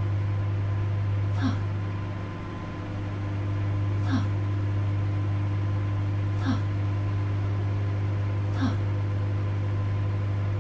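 Microwave oven running: a steady low hum with a short tick about every two seconds, which dips slightly about two seconds in.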